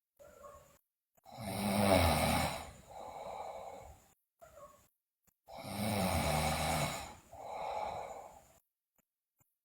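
A sleeping girl snoring loudly, two breaths about four seconds apart, each a loud snore followed by a softer one.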